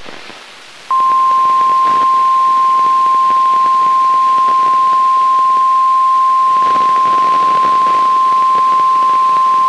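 The National Weather Service's single-tone 1050 Hz warning alarm: one steady, loud, unwavering tone that starts sharply about a second in and holds for about nine seconds over a faint hiss. It signals that a weather warning, here a severe thunderstorm warning, is about to be read.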